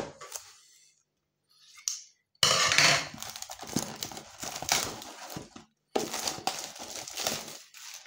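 Plastic shrink wrap being torn and pulled off a cardboard trading-card box, crinkling and crackling in two stretches, starting about two and a half seconds in and again at about six seconds.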